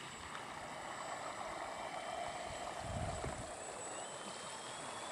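Faint, thin whine of a homemade radio-controlled boat's small motor running out on the water, rising slightly in pitch about four seconds in and then holding steady, over a soft outdoor hiss of water.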